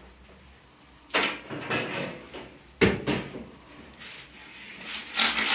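Knocks and clatter of dough pieces and a metal baking tray being handled, with two sharp knocks about a second in and nearly three seconds in. Near the end, a hand pump spray bottle starts hissing water over the yeast rolls in quick strokes to keep them moist.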